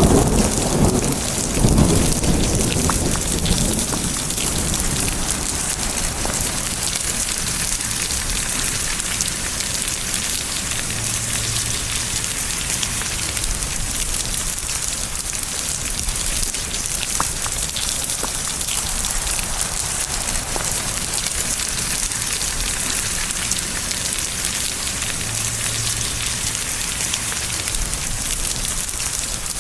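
Steady heavy rain falling with an even hiss. A clap of thunder breaks right at the start and rumbles away over the first few seconds, leaving the rain alone.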